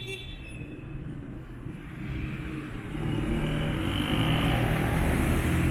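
A car approaching on the road, its engine and tyre noise growing steadily louder.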